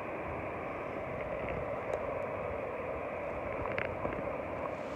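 Steady rushing of a river running high after floods, with a couple of faint scuffs of footsteps on the dirt slope.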